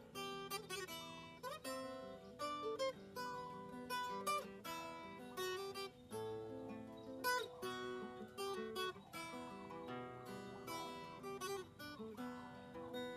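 Background music: an acoustic guitar picking a melody, with a continuous run of plucked notes.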